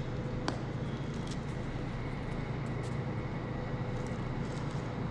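Steady low room hum, with a faint click about half a second in.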